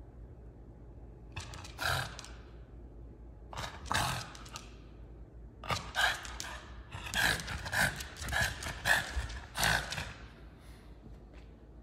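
French bulldog making short, breathy grumbling huffs through its nose with a chew toy clenched in its mouth. There are two single huffs a couple of seconds apart, then a quick run of them over about four seconds, the sounds of a moody, protesting dog.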